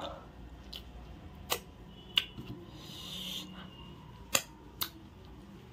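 Mouth sounds of fingers being licked and sucked clean after eating by hand: four sharp wet lip smacks, with a soft sucking hiss between the second and third.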